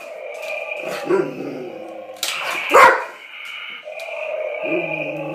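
Labrador retriever barking warily at a toy: a lighter bark about a second in and a loud, sharp bark near the middle, with a pitched whine-like sound starting shortly before the end.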